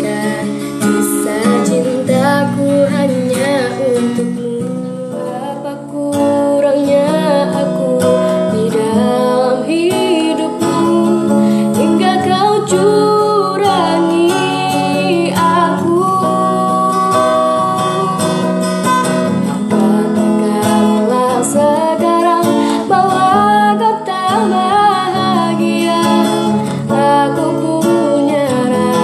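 A woman singing a song while accompanying herself on acoustic guitar.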